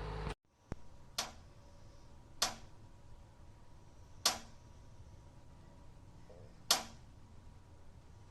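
Four sharp clicks at uneven intervals, each with a short fading tail, over faint background hiss and a faint steady hum.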